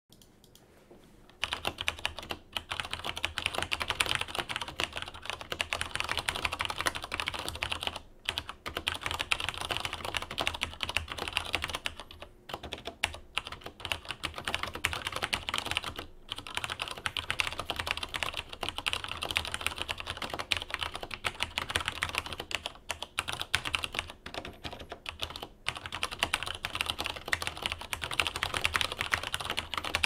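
Fast, continuous typing on a Cherry MX 8100 keyboard with vintage-ish Cherry MX Brown tactile switches and injection-lubed stabilizers: a dense clatter of keystrokes that starts about a second and a half in, with brief pauses every few seconds.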